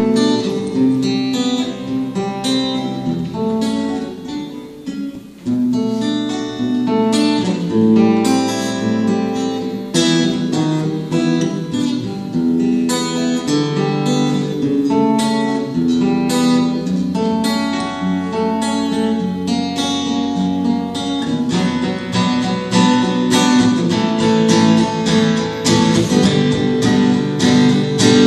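Two acoustic guitars playing a folk song together, with a brief softer passage about five seconds in.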